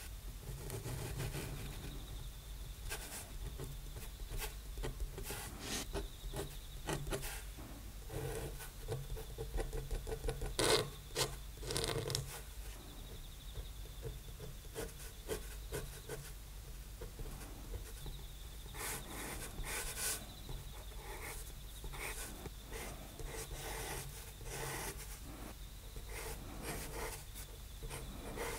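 Steel G-pen dip nib scratching across drawing paper in short, irregular strokes as it inks a drawing, louder for a moment about eleven seconds in.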